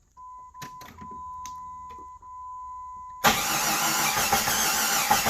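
Key turned in a 1999 Jeep Grand Cherokee: a steady high electronic tone and a couple of clicks, then, a little after three seconds in, the 4.0-litre straight-six is cranked on the starter without firing. It is cranking with no pulse to the injectors, which the mechanic takes as a sign that the crank position sensor is probably bad.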